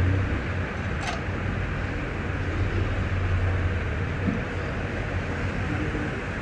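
Hot-air rework station blowing a steady stream of air with a low fan hum, melting solder paste to fix a phone's charging jack to the board. A short click about a second in.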